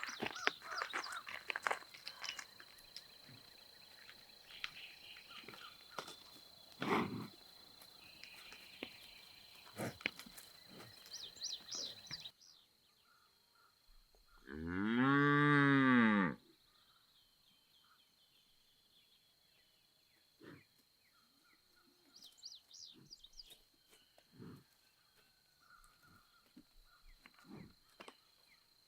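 A cow mooing once, a single long call that rises and then falls in pitch. Faint bird chirps, clicks and a steady high whine sound around it.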